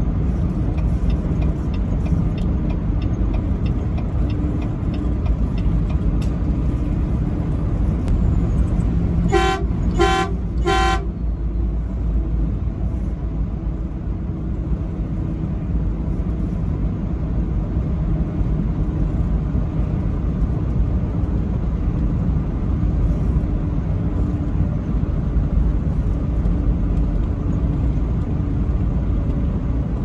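Steady low drone of a truck's engine and tyres heard from inside the cab at highway speed, with three short blasts of the truck horn about ten seconds in. A run of faint, regular ticks sounds in the first few seconds.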